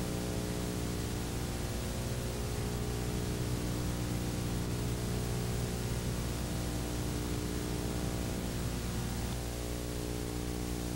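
Steady hiss and a low, even hum from the recording's noise floor, with no music or voices.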